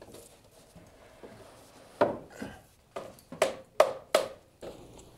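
Irregular knocks and thumps on wood, about seven sharp hits in the second half, as laminated beams are handled and set in place.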